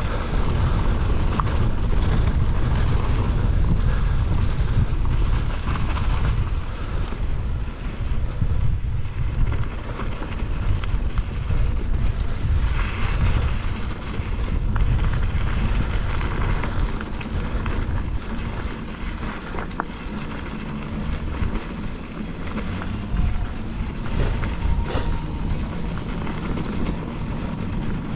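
Wind buffeting the microphone in a steady low rumble, with scattered clicks and rattles, as from a camera on a mountain bike riding a dirt trail.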